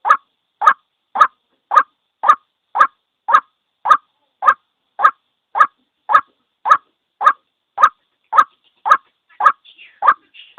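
White-breasted waterhen giving its single call over and over: short notes, a little under two a second, evenly spaced and steady in loudness. Fainter scattered sounds come in near the end.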